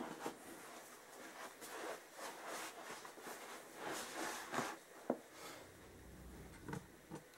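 Faint rustling and shuffling, with a few sharp light knocks or clicks: the loudest about five seconds in, two smaller ones near the end.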